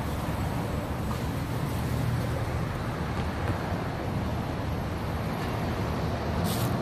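Steady rumble of road traffic, with a short hiss near the end.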